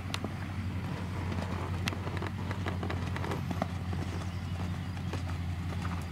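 Hoofbeats of a horse cantering on a sand arena, heard as soft irregular thuds, over a steady low hum.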